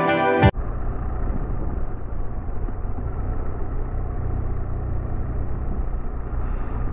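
Music cuts off abruptly about half a second in. Then comes the steady engine and road noise of a BMW R1200 RS's boxer twin while riding.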